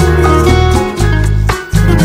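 Background music led by acoustic guitar, with a brief dip in level about one and a half seconds in.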